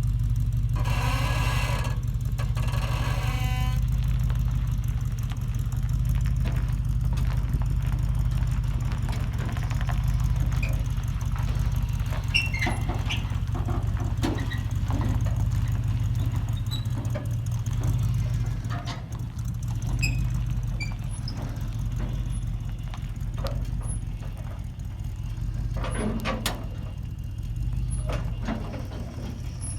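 A Land Rover's engine running steadily at low revs while towing a trailer, with scattered squeaks and clicks. A short high-pitched tone sounds in the first few seconds.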